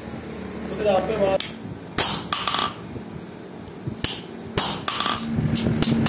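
Hand hammer striking a cold chisel held on an iron disc on an anvil, cutting into the metal: a series of irregularly spaced blows, each with a short metallic ring. A steady low hum comes in about five seconds in.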